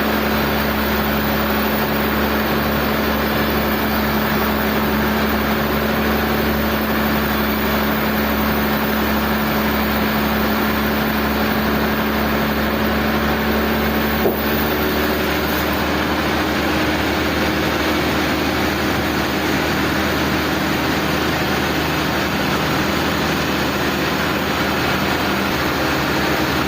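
Sawmill machinery running steadily with an engine-like hum. About halfway through there is a sharp click, and the hum then shifts to a different pitch.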